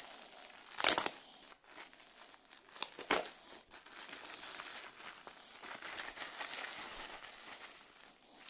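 Plastic courier mailer bag being pulled open and handled: two sharp tearing crackles about a second and three seconds in, then steady crinkling of the plastic as the contents are drawn out.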